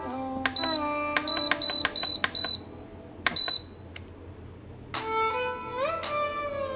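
Electric pressure cooker's control panel beeping as its buttons are pressed: about seven short high beeps in the first three and a half seconds. Background violin music plays under them.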